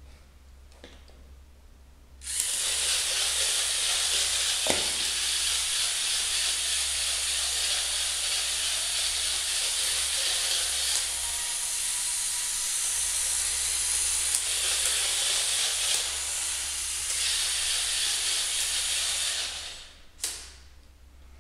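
A loud, steady hiss that starts about two seconds in and cuts off shortly before the end.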